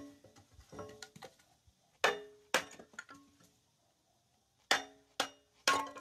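Hammer blows driving wood down onto the blade of a cast-iron kindling splitter, about seven sharp strikes with a short metallic ring, splitting the wood. The loudest come in pairs about two seconds in and near the end.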